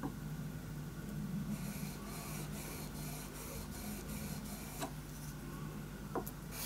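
Steel chisel being rubbed back and forth on a sharpening stone to polish its edge: a rhythmic scraping of about three strokes a second, with a few light clicks of the tool on the stone.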